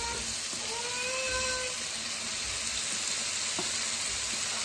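Marinated paneer cubes sizzling steadily in hot oil in a nonstick frying pan.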